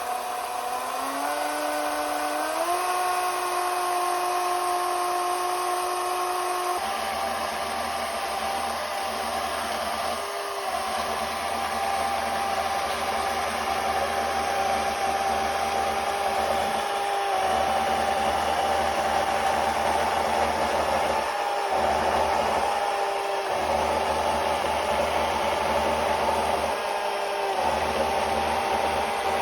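Electrified chainsaw driver's electric motor spinning up in steps to a steady whine, then running on with a rougher mechanical sound from about seven seconds in, with several brief dips where it eases off and picks up again.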